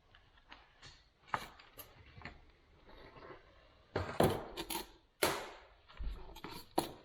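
Hard parts of a grease gun and its accessories being handled: scattered light clicks and taps, then a cluster of louder knocks from about four to seven seconds in.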